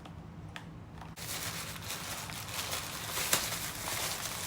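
Plastic packaging crinkling and rustling as it is handled, starting about a second in and going on as a dense crackle with small sharp crackles.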